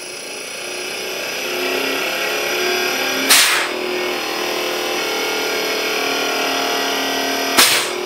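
A 1.5-ton air-conditioner inverter rotary compressor running on a test drive, giving a steady electric whine and hum with several fixed tones, growing louder over the first two seconds while it builds pressure. Two short, loud hisses cut in, about three seconds in and again near the end.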